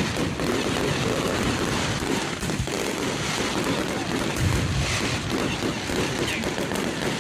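Fireworks going off in rapid succession: a dense, continuous crackle with occasional low booms.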